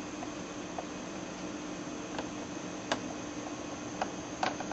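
Room tone: a steady hiss with a faint hum, with a few light clicks scattered through it.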